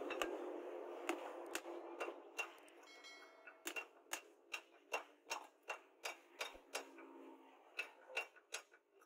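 Small hammer tapping the metal pins in a knife's wooden handle scales against a steel anvil block, setting the pins: a run of about twenty light, sharp taps, sparse at first, then quickening to about three a second.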